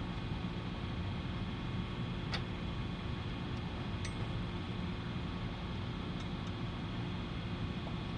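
Steady low background hum with two faint light clicks, about two and four seconds in, from parts being handled.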